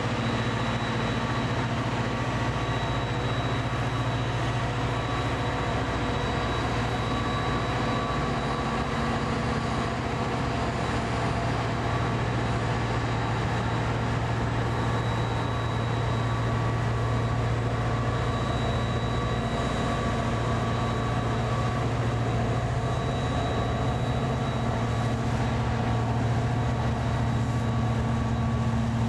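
Amtrak EMD F40PH diesel locomotive running steadily, a low, even engine drone with a few steady tones above it and no change in pitch or level.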